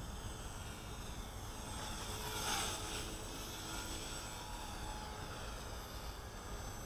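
Small electric RC helicopter, a CopterX CX250SE, in flight: a high whine from its motor and rotors that slides in pitch as it moves about, loudest as it passes close about two and a half seconds in, over a low rumble of wind on the microphone.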